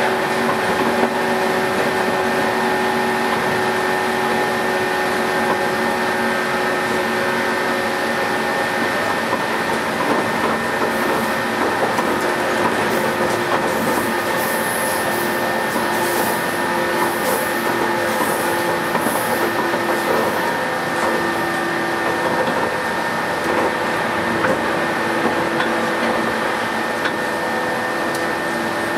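Inside a JR 117-series electric train running at speed: the DC traction motors and gears give a steady whine of several fixed pitches over the rumble of wheels on rail. A few short hisses come in around the middle.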